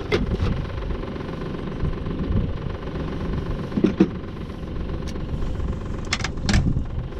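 Outboard motor running steadily as a small fishing boat motors along, with a few short knocks.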